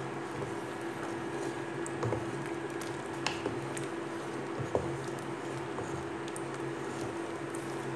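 A wooden spatula stirring thick coconut milk with chunks of taro in a metal pot, making soft squelching with a few light knocks, about two, three and four and a half seconds in. A steady low hum runs underneath.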